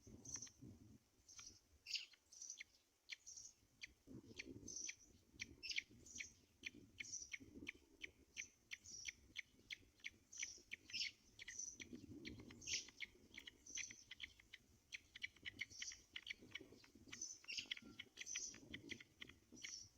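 Birds chirping: many short, high chirps repeated quickly, several a second at times, over a few faint low rustles.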